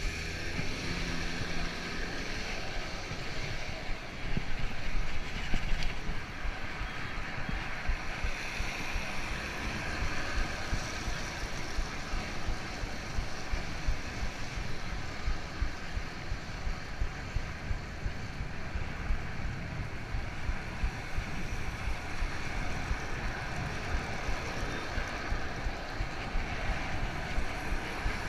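Wind rushing over the microphone of a camera on a moving road bicycle, a steady fluctuating rush, with tyre and street-traffic noise underneath.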